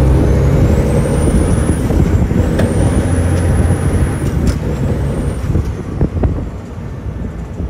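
Diesel truck engine pulling under acceleration, with a high whistle that climbs and breaks off three times, as with gear shifts.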